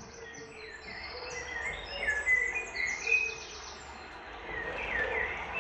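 Forest ambience of birds chirping and trilling, with insects, several calls overlapping and the loudest chirps about two and three seconds in.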